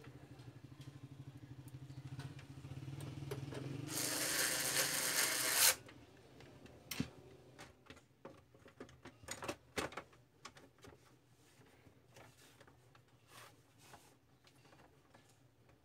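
Printer mechanism running: a steady motor hum, then a louder whirring from about four seconds in that stops suddenly near six seconds. Scattered light clicks and knocks of parts being handled follow.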